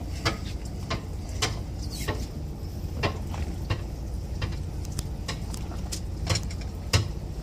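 Irregular sharp clicks and knocks from a heavy fishing rod and reel as an angler pumps and winds against a hooked yellowfin tuna, over a steady low rumble of the boat.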